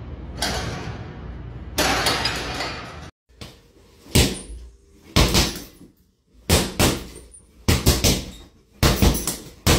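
Punches landing on a hanging leather heavy punching bag: about a dozen sharp thuds, often two or three in quick succession. They are preceded by a few seconds of noisier sound with a loud rush about two seconds in.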